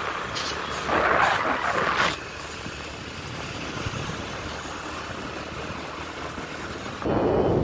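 Road noise from a moving vehicle, with wind rushing over the microphone. It is louder with brief whooshes in the first two seconds, steadier and quieter in the middle, and a louder rush of wind starts suddenly about seven seconds in.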